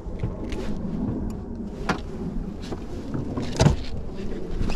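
Clicks and knocks of gear being handled in a fishing boat, the loudest about three and a half seconds in, over a low rumble of wind on the microphone.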